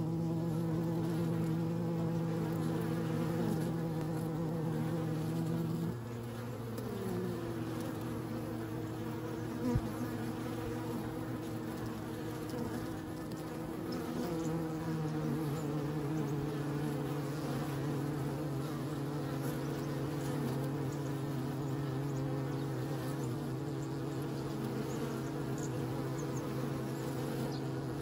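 Honeybees buzzing at the entrance of a busy hive as foragers fly in and out, a continuous droning hum whose pitch shifts a few times as bees pass close. A single short click sounds about ten seconds in.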